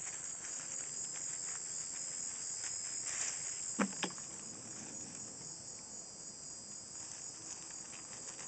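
Steady high-pitched chorus of insects chirping, with scattered light crackles and two sharp clicks about four seconds in.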